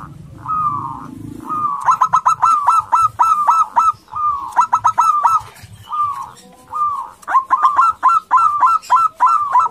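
Zebra dove (perkutut) calling: a string of short, slightly falling coos, broken three times by quick runs of clipped staccato notes. It is the loud territorial and courtship call of a male local-type perkutut.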